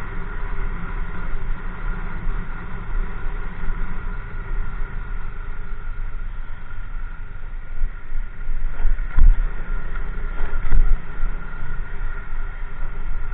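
Motorcycle riding at low speed: steady engine and road noise with wind rumble on a helmet-mounted microphone. Two thumps stand out, about nine and eleven seconds in.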